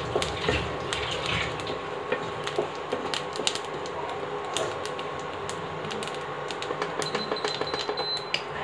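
Cumin seeds, cloves and bay leaf sizzling in hot oil in a kadhai, with irregular crackles and clicks as a wooden spatula scrapes and taps the pan.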